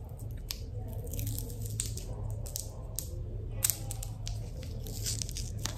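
The wrapper of a small chocolate crinkling and tearing in irregular crackles as it is unwrapped by hand.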